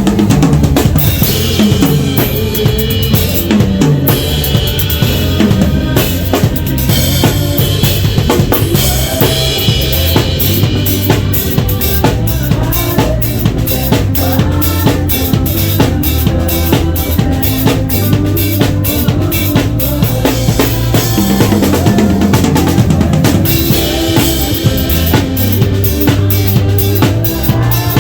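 Drum kit played live in a band groove: steady bass drum, snare and rimshot hits over sustained low instrumental notes, loud and unbroken.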